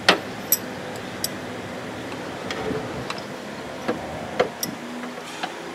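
Irregular sharp metal clicks and taps, about nine in all, as a wrench and the turbo's steel oil supply line knock against the turbocharger while the line is fitted, over a steady background hiss.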